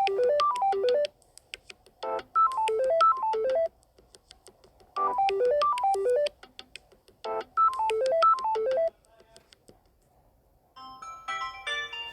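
Samsung Galaxy A01 Core stock ringtone: a short, bright phrase of quick notes played four times with short pauses between. Near the end a different ringtone begins.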